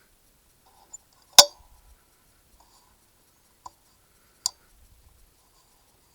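A few separate sharp clicks, the loudest about a second and a half in and another fairly loud one near four and a half seconds.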